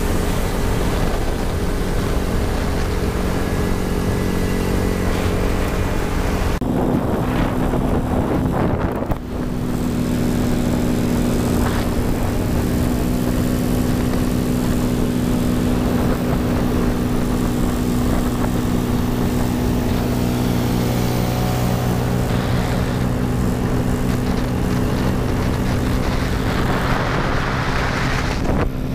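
Scooter engine of a GY6-powered Honda Ruckus running steadily at cruising speed, with wind rushing over the camera. The engine note shifts about seven seconds in and the sound dips briefly at about nine seconds, then steadies again.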